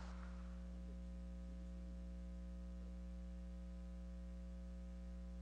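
Steady electrical mains hum with a buzz of many evenly spaced overtones, unchanging throughout.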